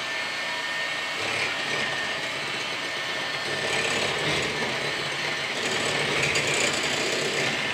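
Electric hand mixer running steadily, its beaters whirring through cake batter in a glass bowl.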